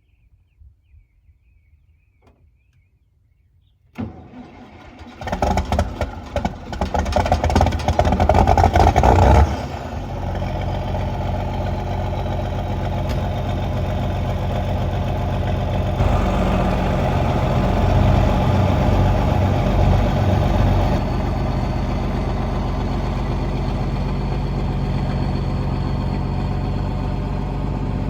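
An engine being started: it comes in suddenly, runs rough and loud for about five seconds, then settles into a steady idle.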